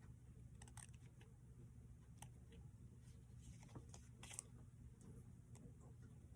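Scissors snipping faintly several times, trimming small overhanging bits off paper craft pieces, with the clearest snip about four seconds in.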